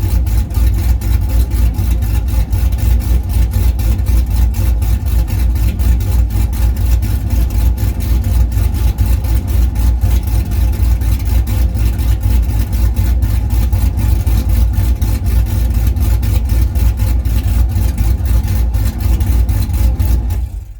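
Chevrolet Trailblazer SS V8 running at a steady loud idle, with a deep even exhaust rumble. The sound dies away just at the end.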